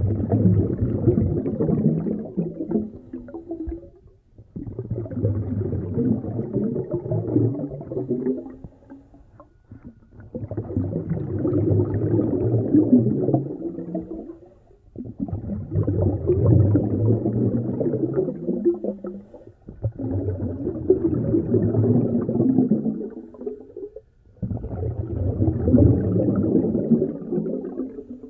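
A snorkeler breathing through a snorkel, heard muffled underwater: long rushing breaths in slow cycles, six in all, each lasting about four seconds with a short pause between.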